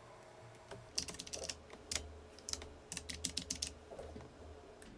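Typing on a computer keyboard: a run of quick, irregular key clicks that starts about a second in.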